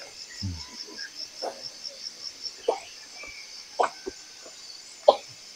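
Insects trilling steadily in a high band, with a quick pulsing call of about five beats a second over the first half. Short sharp calls or knocks come about once a second, the loudest about five seconds in.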